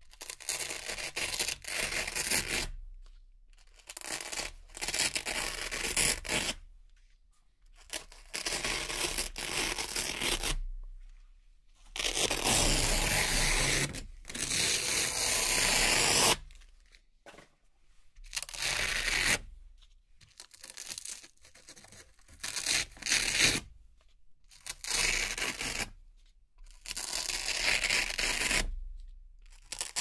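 Velcro hook-and-loop strips being peeled apart one after another: a series of crackling, rasping rips of a second or two each, with short silent pauses between them, and one longer rip of about four seconds near the middle.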